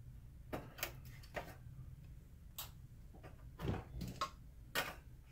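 Irregular light clicks and taps, about seven of them, from a screwdriver and small parts being handled inside an opened DLP projector's plastic housing.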